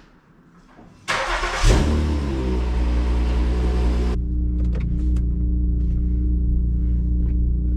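A modified Honda's engine is started: it cranks and catches about a second and a half in with a brief rev, then settles into a steady idle. A loud hiss comes with the start and cuts off suddenly a few seconds later.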